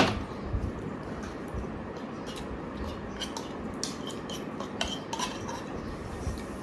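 Cutlery clinking against plates and bowls during a meal, in scattered light clicks, with one sharp knock at the very start.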